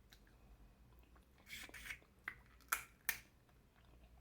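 Close-miked eating and shell-handling noises from a seafood boil: a short crackle about a second and a half in, followed by three sharp clicks.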